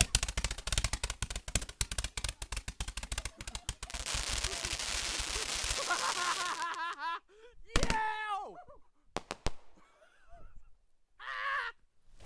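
Consumer firework cake with a fan-shaped effect firing a rapid string of shots for about three and a half seconds, followed by a couple of seconds of crackling hiss. It then dies out, and a few whoops or shouts follow.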